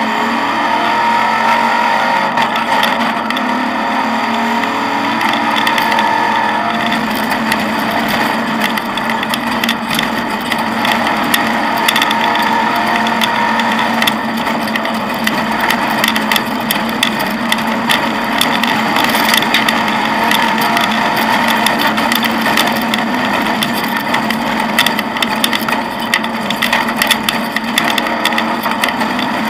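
Off-road rally car driving along a rough dirt track, heard from inside the cockpit: the engine running with its revs rising and falling, under a constant clatter and rattle of the car's body and fittings with many sharp knocks.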